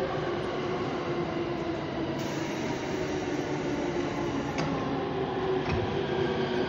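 JR 185 series electric train standing at the platform, its onboard equipment giving a steady hum over a bed of station noise, with a couple of short clicks after about four and a half seconds.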